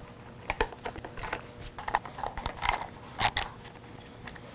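Irregular clicks and clinks of small metal nuts and washers and hard plastic parts being handled as a gauge is unfastened from a motorcycle dashboard, with one louder clack a little past three seconds in.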